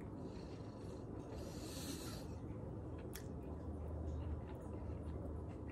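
A person eating quietly: a soft breath out through the nose about a second and a half in, then a few faint clicks, over a steady low hum.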